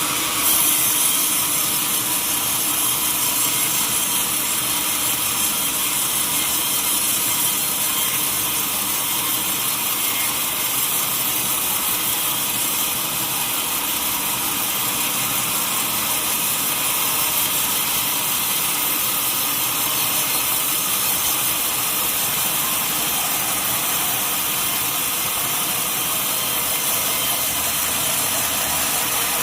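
Sawmill saw cutting lengthwise through a long mahogany log, a steady mechanical sawing noise with the mill's machinery running under it.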